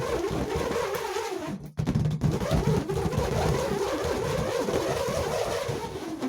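Two hex nuts whirling around inside a small inflated rubber balloon swung in circles: a continuous buzzing whine that wavers up and down in pitch, cutting out briefly just under two seconds in before starting again.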